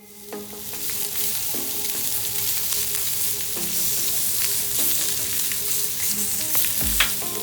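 Food sizzling steadily in a hot frying pan, with a dull bump near the end.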